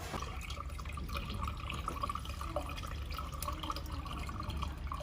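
Water trickling and splashing into the reservoir of a laser welder's water chiller as it is filled, with a steady low hum underneath.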